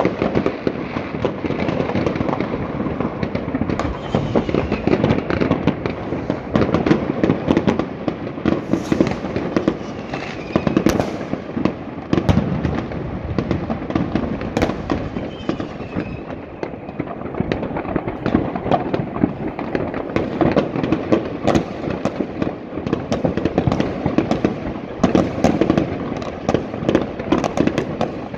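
Fireworks going off all across a city: a dense, unbroken clatter of firecracker crackle and rocket bangs from many places at once, with now and then a faint whistle.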